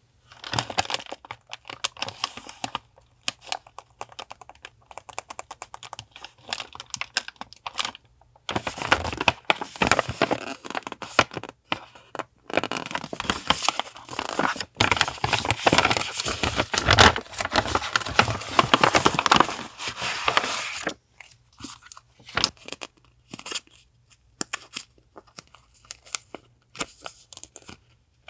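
Close-up paper and packaging handling: rustling, crinkling and tearing. The sound is sparse at first, turns to dense, continuous crinkling from about a third of the way in until past two-thirds, then goes back to scattered handling noises.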